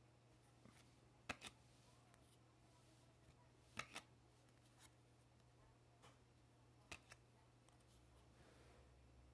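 Faint snaps of Upper Deck hockey trading cards being flipped one at a time through a stack in the hands, a quick double click every two or three seconds, over a low steady hum.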